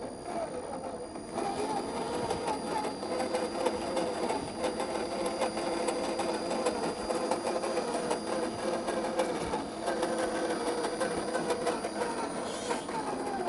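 Electric motor and drivetrain of a 1/10 scale RC crawler whining steadily as it drives over rough ground, with faint clicks and crunches from the tyres on the terrain. The whine drops in pitch near the end as the truck slows.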